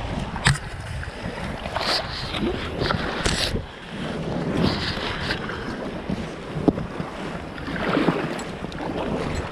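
Wind buffeting the microphone over lapping, splashing water, with a few sharp knocks, as a canoe is launched off the shore into choppy water.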